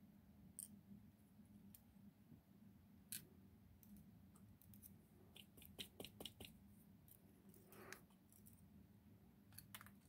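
Faint, scattered small metallic clicks and taps of steel tweezers working the pins and springs out of a Ruko 600 lock cylinder, with a quick run of clicks around six seconds in.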